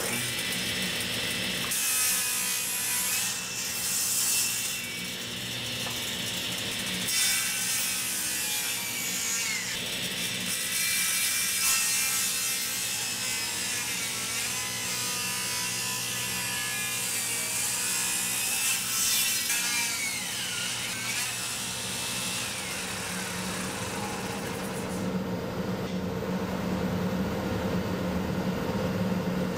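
Table saw with a 10-inch blade ripping thick 8/4 maple, the cut's pitch sagging and recovering as the blade loads up. The wood's internal stress is pinching the riving knife and blade, so the cut binds and burns. Near the end the cutting noise stops, leaving the saw's steady hum.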